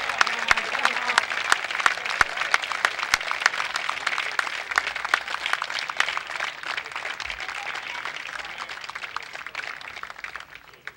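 Crowd applauding: dense clapping that slowly thins out and fades away near the end.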